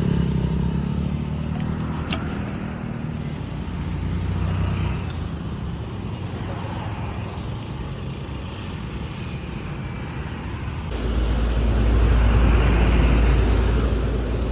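Road traffic going by, a steady low rumble of passing engines and tyres, with one vehicle passing close and loud from about eleven seconds in.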